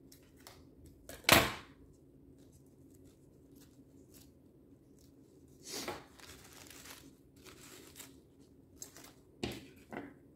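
Coffee-filter paper rustling and crinkling as a paper lily is handled and shaped, among a few short sharp knocks on the table, the loudest about a second in and two more near the end.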